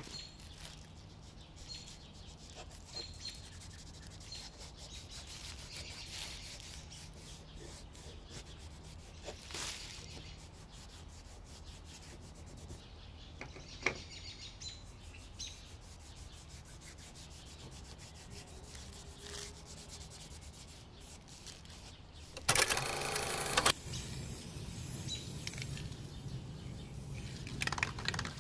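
Gloved fingers rubbing a dark paste finish into a wooden knife handle: a quiet, steady rubbing, with faint bird chirps in the background and a louder noise lasting about a second near the end.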